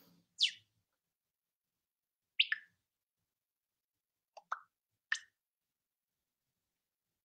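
A few short, sharp clicks over near silence: one just after the start, one about two and a half seconds in, a quick pair about four and a half seconds in, and one more about five seconds in.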